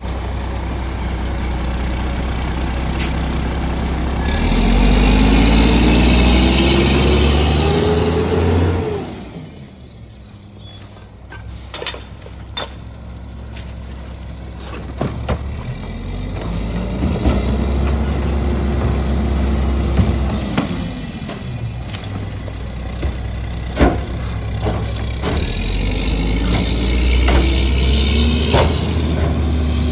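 Mack MR garbage truck's diesel engine revving up and holding high three times as the McNeilus rear loader's hydraulic packer cycles, then settling back to idle. In the idle stretches, sharp thuds and clanks of bags and cans hitting the rear hopper.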